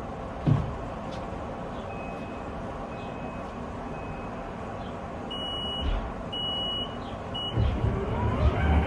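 Inside a tram car running on its line: steady rolling and motor noise with a single knock about half a second in. Three high electronic beeps sound in the middle. Near the end a louder low rumble and a gliding motor whine come in as the tram slows for a stop.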